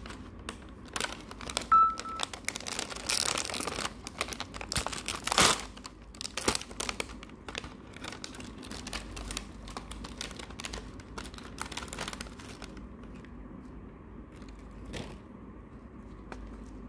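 Plastic snack packet of seasoned seaweed crinkling and crackling as it is handled and torn open, densest in the first few seconds, then thinning to occasional faint rustles after about thirteen seconds.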